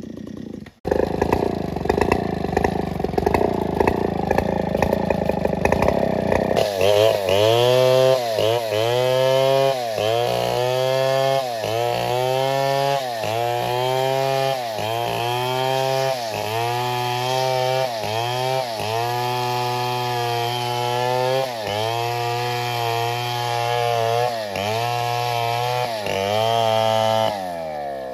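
Chainsaw cutting into a coconut palm trunk. After a few seconds of steady, rough running, the engine's pitch sags and recovers about once a second as the chain bites and is eased back, then falls away near the end as the throttle is released.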